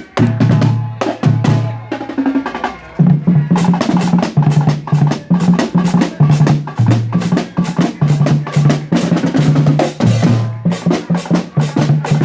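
Fast, driving drumming: rapid snare strokes and rolls over deep bass drum beats that step between a few pitches, getting louder about three seconds in.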